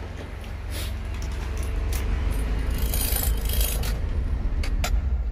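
Handling noise as the phone is moved around the car: a low rumble that slowly grows louder, with scattered clicks, scrapes and light rattles, then cuts off suddenly near the end.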